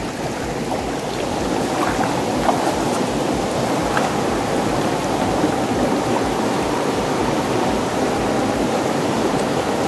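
Fast-flowing river water rushing steadily, with a few faint clicks.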